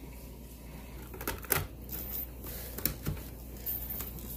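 Plastic clicks and taps from handling a Swiffer WetJet mop: a handful of sharp, irregularly spaced clicks over a low background.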